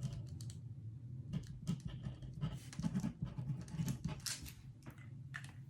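Scattered light taps and a few brief rustles from a diamond painting kit's packaging being handled, over a steady low hum.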